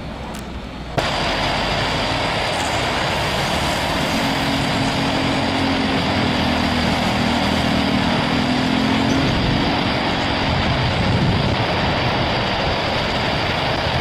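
Turkish Airlines Airbus A350's Rolls-Royce Trent XWB engines at takeoff thrust as the jet rotates and lifts off: a steady, loud rush of jet noise with a high whine over it. It starts abruptly about a second in, after a quieter, distant jet sound.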